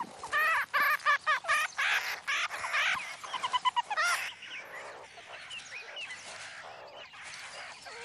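A rapid series of short, pitched chirping animal calls, about three a second, over the first four seconds, then softer scattered calls.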